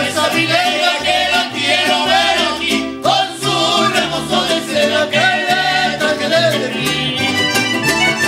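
Live mariachi music: a man singing over strummed guitars, with a guitarrón plucking a stepping bass line underneath.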